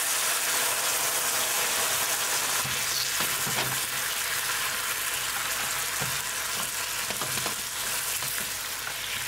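White wine sizzling in a hot frying pan of sautéed mushrooms and butter-flour roux as it reduces to cook off its alcohol, with a spatula stirring and scraping through it. The sizzle is steady and eases off slightly near the end.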